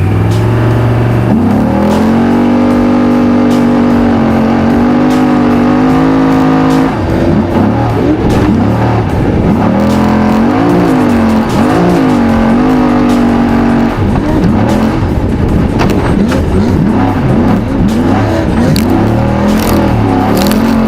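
Unlimited trophy truck's race engine revving hard. Its pitch holds high for several seconds, then rises and falls in repeated swells as the throttle is worked, quicker and choppier over the last several seconds.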